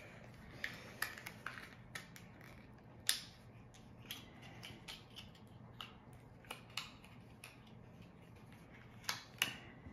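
Small plastic figurine package being picked open by hand: faint scattered clicks and crinkles, the sharpest about three seconds in and two more near the end.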